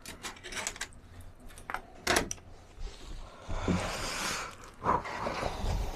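A door being unlatched and opened: a quick string of clicks and knocks, then a burst of rustling noise and a thump near the end.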